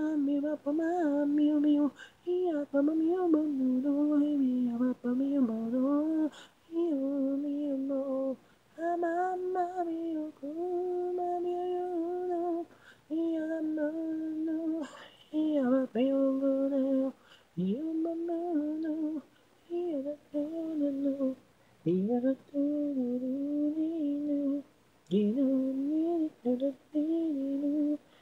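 A single voice singing a pop melody a cappella, with no instruments: the isolated lead vocal of a song. It sings in phrases a few seconds long broken by short pauses, with a couple of notes swooping up from below.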